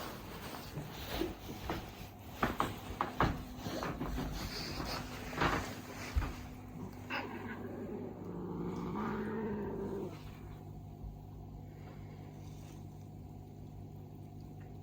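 A few scattered knocks and taps, then about eight seconds in a mother cat gives a low, drawn-out call lasting a couple of seconds.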